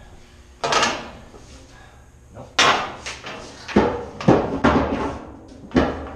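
Metal 16-inch gun powder cans clanking and banging against each other and the deck as they are shifted by hand: about six sharp knocks, each with a short metallic ring.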